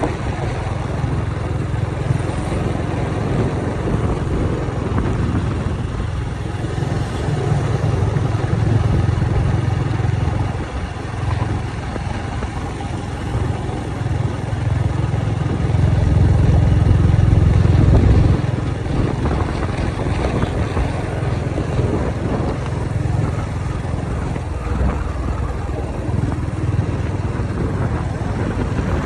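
Steady low rumble of road and wind noise from a slowly moving vehicle. It swells louder about a third of the way in and again a little past the middle.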